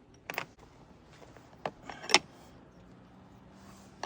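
A few separate sharp clicks and clanks of tools and metal parts being handled on a snow blower during a belt change, the loudest about two seconds in.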